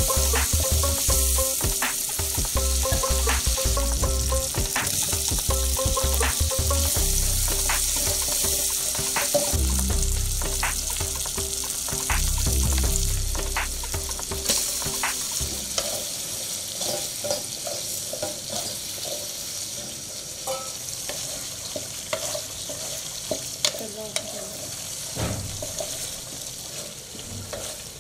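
Onion masala sizzling in hot oil in an iron kadai, stirred with a wooden spatula that scrapes and knocks against the pan in short clicks. The sizzle drops lower about halfway through, as chicken livers go into the pan and are stirred through the gravy.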